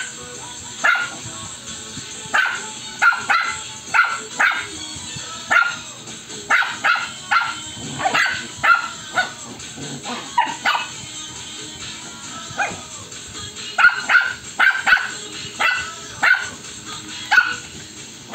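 Puppies barking and yipping in rough play. The short, high barks come in quick, irregular runs, with a brief lull a little past halfway.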